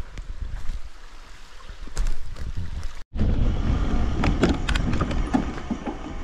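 Mountain bike rolling over a rough grassy track: a low tyre rumble with quick rattles and clicks from the bike, and wind buffeting the microphone. There is a brief dropout about three seconds in, after which the rumble is louder.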